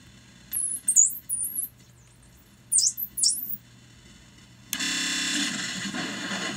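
Circuit-bent Homedics Sound Spa SS-2000 sound machine glitching through its pitch-bent nature sounds. It gives two clusters of very high-pitched, down-sweeping electronic squeals. About three-quarters of the way through, a loud harsh hiss with a buzzing texture starts suddenly and runs on.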